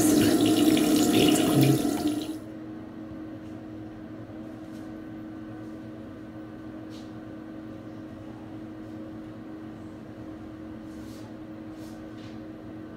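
A tap running into a sink, cutting off suddenly about two seconds in. After that, a quiet room with a steady low hum and a few faint clicks.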